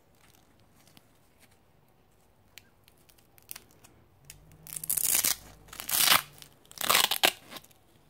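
Hook-and-loop (Velcro) fastener on a morale patch being ripped apart three times, each rip a loud rasping tear lasting well under a second, about a second apart, from about halfway through. A few faint clicks and rustles of handling come before them.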